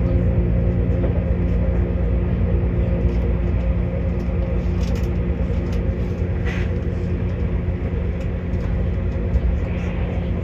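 Diesel passenger train running along the line, heard from inside the carriage: a steady low rumble with a droning engine hum and faint ticks from the wheels and track. A brief higher-pitched sound comes about six and a half seconds in.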